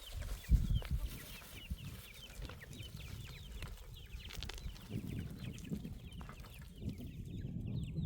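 Birds chirping: many short, falling chirps, several a second, with a few low thuds about half a second in.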